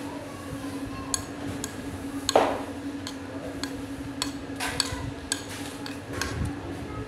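Metal spoon clinking and scraping against a plate during eating: a series of about eight sharp separate clicks, the loudest about two and a half seconds in, over a steady low hum.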